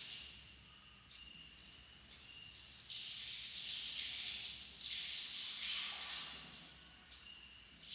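Water splashing and pouring in long, irregular surges, the sound of someone bathing.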